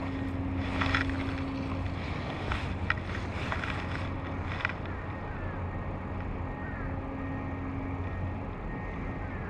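Steady low hum of a distant motor over wind and water noise, with a handful of short clicks and swishes in the first five seconds as a fly line is cast.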